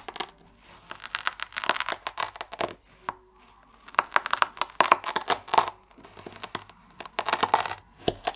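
Kinetic sand crunching and crumbling as a knife slices through it, in several short bursts of fine crackling.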